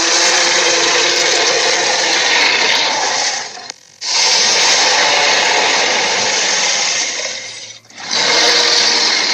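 Acrocanthosaurus roar sound effects: long, rough, hissing roars, one after another, each lasting several seconds, with short breaks about four and eight seconds in.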